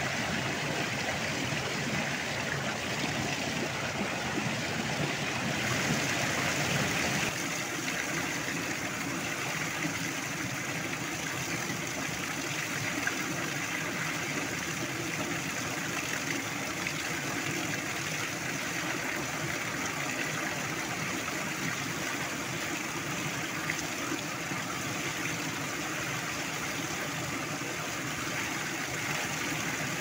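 Mountain river rushing over boulders in small cascades and waterfalls: a steady, dense rush of water, its tone changing slightly about seven seconds in.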